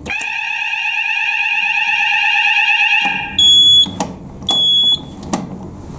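Fire alarm sounder going off during a weekly alarm test: one loud, steady tone that cuts off suddenly after about three seconds. Then come two short, higher beeps about a second apart, with a few clicks.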